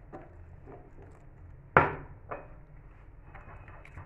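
A utensil stirring thick gram-flour batter in a glass bowl, with faint scrapes and clinks against the glass. One sharp knock comes a little under two seconds in, followed by a smaller one.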